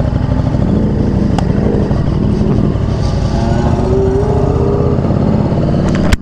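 Motorcycle engine running while riding, its pitch wavering up and down. A sharp click comes near the end, and the sound drops off suddenly.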